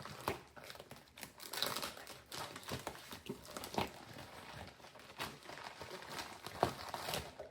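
Packaging crinkling and rustling as the box's contents are handled, with irregular small clicks and taps of parts and cables.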